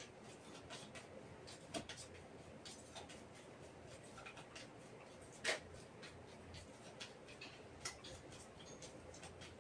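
A deck of tarot cards shuffled overhand: faint, irregular flicks and taps of cards against each other, with one louder snap about five and a half seconds in.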